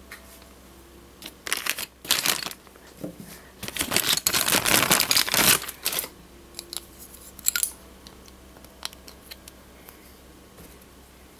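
Plastic crinkling and rustling in handling, in bursts that peak about four to five seconds in, followed by a few light clicks and taps of clear plastic display stands and diecast model planes being set down.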